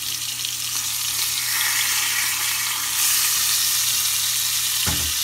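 Sausage patties sizzling in hot oil in a nonstick frying pan, a steady hiss that grows louder about three seconds in as a patty is turned over with a spatula. A brief low knock near the end.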